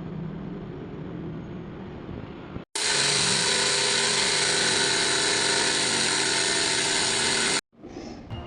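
A low hum for the first couple of seconds, then, after a brief gap, a power tool running steadily at a constant pitch for about five seconds before stopping suddenly.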